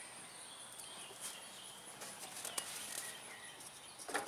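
Quiet handling noise: a few faint clicks, then a small cluster of soft knocks near the end, as hands move tools and parts. A faint steady high whine sits underneath.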